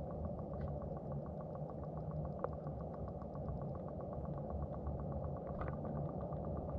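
A steady low mechanical drone with rapid, even ticking, picked up by a camera underwater. There is a single sharp click about two and a half seconds in.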